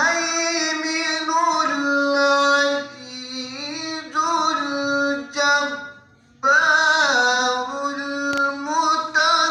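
A man chanting Quran recitation (tilawat) in the drawn-out melodic style, holding long, wavering notes. Two long phrases, with a short breath break about six seconds in.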